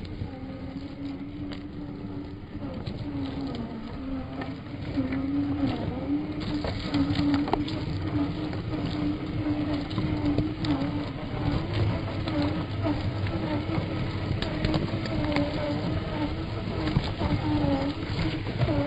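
Electric motor and gearbox of a scale RC rock crawler whining, the pitch wavering up and down as the throttle changes, with crackles of the tyres over twigs and mud. It gets louder about five seconds in.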